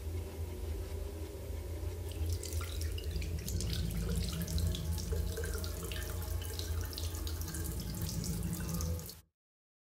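Water running from a tap into a bathroom sink, with splashing from about two seconds in, over a low steady hum. The sound cuts off abruptly near the end.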